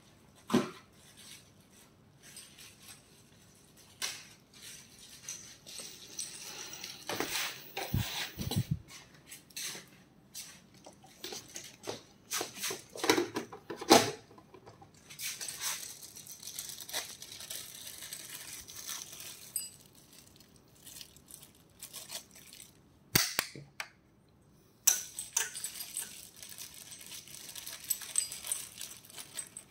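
Folding treadmill being assembled by hand: scattered knocks and clicks of its metal and plastic frame parts being moved and fitted. The loudest are sharp single knocks about halfway through and two-thirds of the way in, and a plastic hardware bag crinkles near the end.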